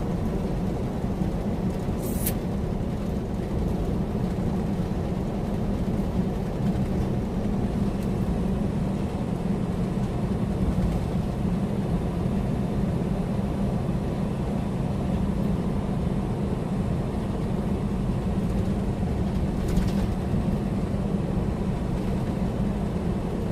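Steady drone of a loaded semi tractor-trailer cruising at highway speed, heard from inside the cab: engine and road noise with a strong low hum.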